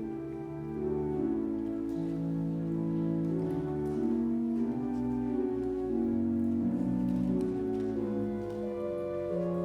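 Slow instrumental music of long held chords that change every second or so.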